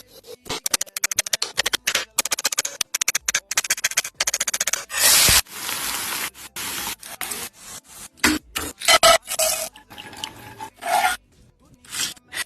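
Rapid runs of rasping, scraping strokes, several a second, with a louder scraping burst about five seconds in, over background music.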